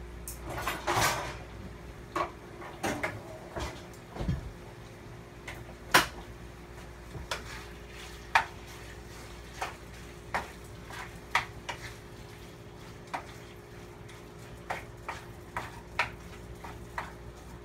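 Wooden spoon stirring diced chicken in a nonstick skillet, with scattered knocks and scrapes against the pan, over a faint steady hum. A rustling clatter comes in the first second or so.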